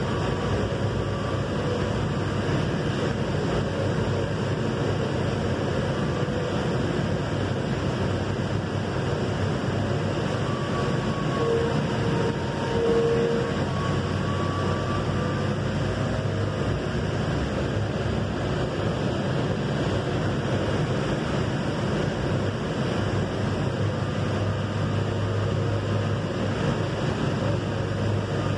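Steady running noise of a Valley Metro Rail light rail car in motion, heard from inside the car, with a low hum and a few faint brief tones along the way.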